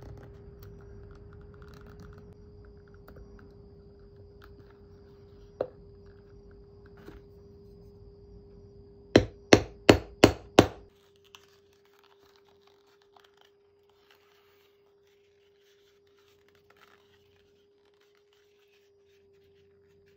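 A hammer striking a steel rivet setter five times in quick succession, about three blows a second, setting a brass double-cap rivet through leather on a stone board. Before the blows, faint rustling and clicking of leather and small metal parts being handled.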